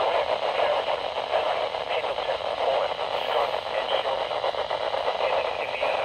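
Static hiss from a Midland weather alert radio's speaker as it receives the NOAA Weather Radio broadcast on 162.450 MHz. The hiss is steady, and the noisy reception drowns out any clear voice.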